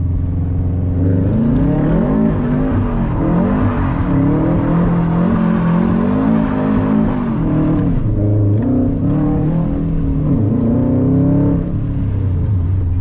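Subaru WRX STI's turbocharged flat-four engine idling, then revved up and down over and over for about ten seconds while the car is spun through a drift on wet pavement, dropping back to a steady idle near the end.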